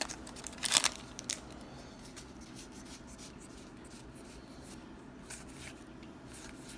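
Magic: The Gathering cards from a freshly opened booster pack being handled and flipped through, with a couple of wrapper crinkles in the first second and a half, then faint rubbing and sliding of cards.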